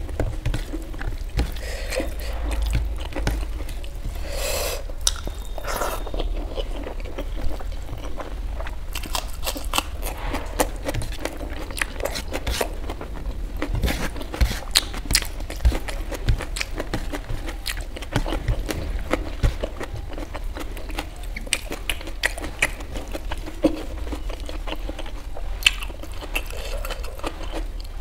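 Close-up mouth sounds of someone eating fried rice and Manchurian with her hand: chewing with many short wet clicks. Between bites, fingers squish and mix rice on a steel plate.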